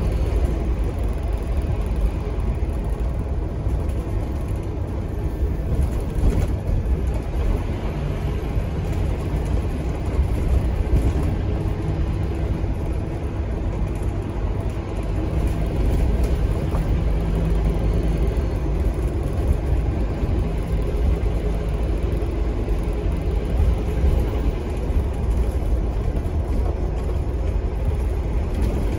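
Scania K230UB bus's rear-mounted five-cylinder diesel engine and ZF Ecomat automatic gearbox running steadily as the bus drives, heard inside the passenger saloon as a deep, even rumble over road noise. The uploader says this engine has some kind of turbo leak.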